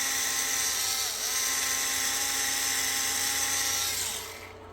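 A small electric motor whirring steadily, with a brief dip in pitch about a second in, then slowing and stopping near the end.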